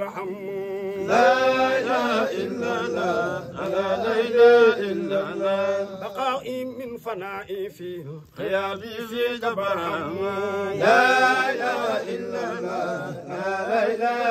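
Devotional Sufi chanting of a praise poem, sung in long, wavering, melismatic phrases, with a short break about eight seconds in.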